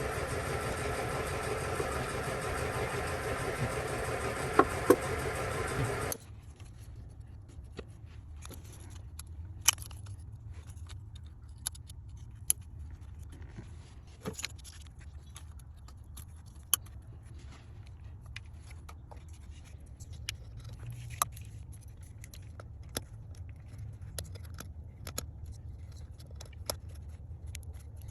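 Car engine running steadily for about six seconds, then stopping abruptly. After that comes a low hum with scattered light clicks and taps.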